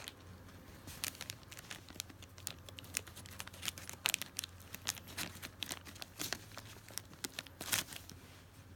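Plastic Happy Meal toy bag crinkling as it is opened by hand, a quiet scatter of irregular crackles throughout.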